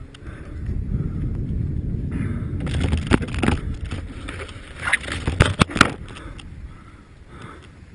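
Snowmobile running with a low, steady rumble, broken by a few sharp knocks and clatters about three seconds in and again around five to six seconds in.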